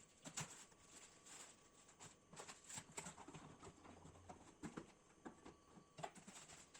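Faint, irregular light clicks, taps and rustles of computer parts and their cardboard and plastic packaging being handled during unboxing.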